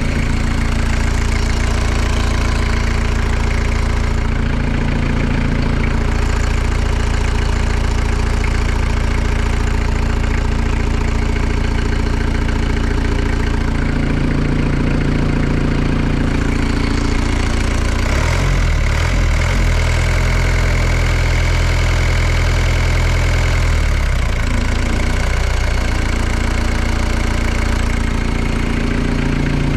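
Kubota V3600T four-cylinder turbo diesel in a wood chipper running steadily, with a change in its note about eighteen seconds in that settles back about six seconds later. It is purring, with no knocking or odd noises, which the owner takes as a healthy engine despite the gauge showing no oil pressure; he suspects the gauge or the oil pressure sensor.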